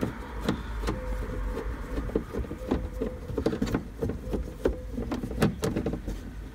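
Screwdriver undoing a Phillips screw from the plastic door-handle surround of a VW T5 door card: many small, irregular clicks and ticks as the screw is turned out.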